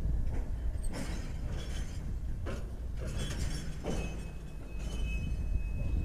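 Train rolling by with a low rumble and irregular metallic clanks. A thin, steady high-pitched squeal sets in about four seconds in, typical of wheel flanges squealing on the rail.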